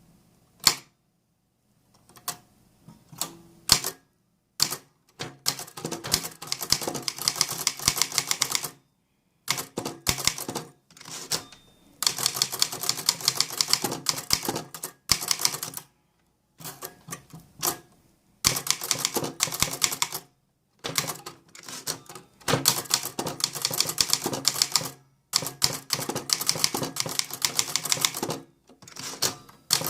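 Typewriter being typed on: fast runs of keystrokes lasting several seconds each, broken by short pauses.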